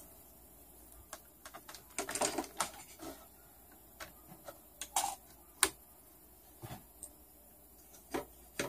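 Irregular light clicks and taps of handling on a workbench, in short clusters with a busier patch about two seconds in.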